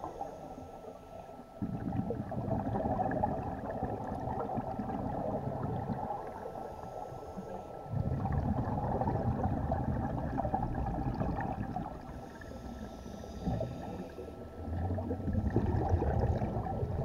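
Scuba diver breathing through a regulator underwater: a short hissing inhale, then a few seconds of rumbling exhaled bubbles, in three breath cycles.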